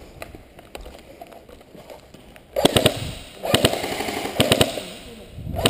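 Airsoft electric rifle (M4 replica) firing short full-auto bursts: rapid clacking shots over a gearbox whir, in several bursts in the second half.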